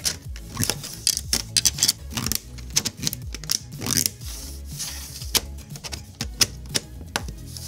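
Irregular hard plastic clicks and clacks as 3D-printed connector pieces are set down and twisted into a 3D-printed plastic grid panel on a wooden tabletop, over background music.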